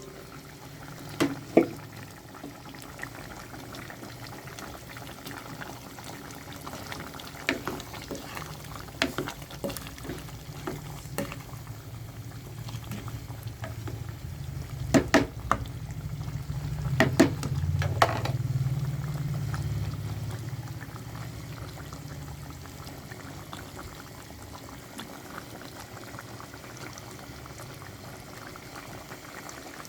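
Pork menudo stew bubbling in a pot as it simmers down its still-soupy sauce, the bubbling growing louder about halfway through, with a few sharp clicks.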